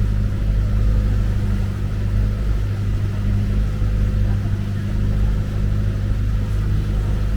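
An engine running steadily, with a constant low hum and rumble that does not change pitch.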